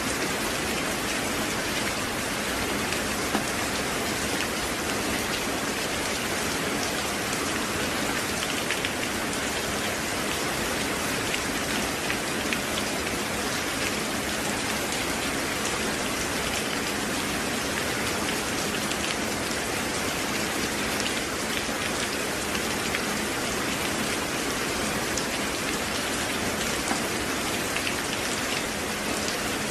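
Steady rain falling, an even hiss with scattered drops ticking on a surface.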